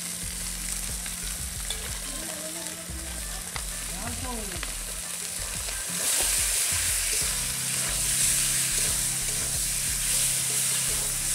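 Spiced food frying in hot oil in an iron wok over a wood fire, sizzling steadily while a metal spatula stirs it. The sizzling gets louder about six seconds in.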